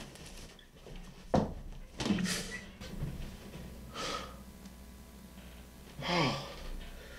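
A man breathing hard in short gasps and exhales, with a single knock about a second and a half in and a short falling vocal sigh near the end.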